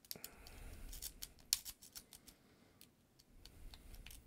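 A twisted rake pick scraping in and out of a clear practice padlock's pin tumblers under a tension wrench, with many quick, irregular small metallic clicks and scrapes.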